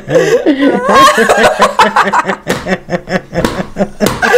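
People laughing in short, repeated, pitched bursts, led by a woman's laughter in a laughter-yoga exercise.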